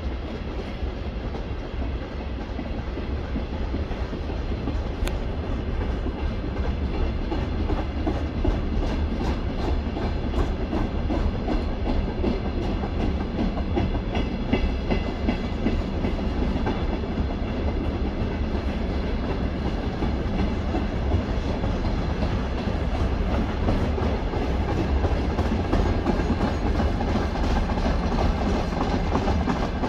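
Freight train wagons (tank cars, container flats and hopper wagons) rolling past: a steady rumble of steel wheels on rail with regular rhythmic clicking of the wheels over the track.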